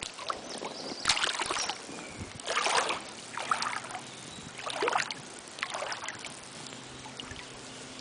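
Rubber wellington boots wading through stream water, the water sloshing and splashing around the boots with each step. There are about five separate splashes, roughly a second apart.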